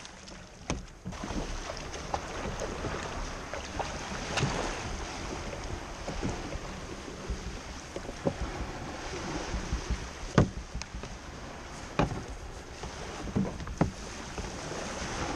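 Small waves washing around a kayak in the shallows as it comes in to the beach, with some wind on the microphone and a few sharp knocks.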